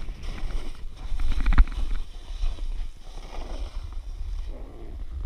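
Snowboard sliding and scraping over bumpy packed snow, with wind buffeting the GoPro's microphone as a steady low rumble. A hard thump about one and a half seconds in, the loudest moment, as the board hits a bump.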